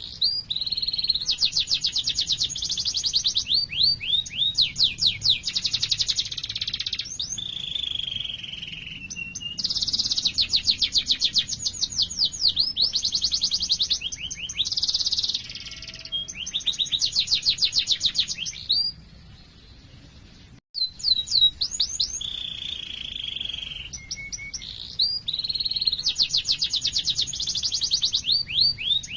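Domestic canary singing a long song of rapid high trills and rolling phrases, broken by a short pause about two-thirds of the way through before the song resumes.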